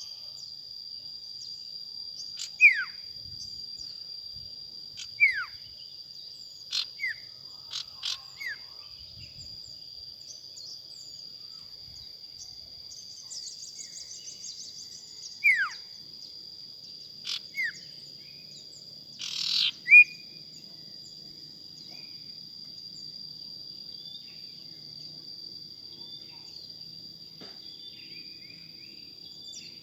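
Male sirtu bird giving sharp call notes that slide steeply downward in pitch, about eight of them scattered at irregular gaps, in a fighting, territorial bout. A steady high-pitched insect drone runs behind them.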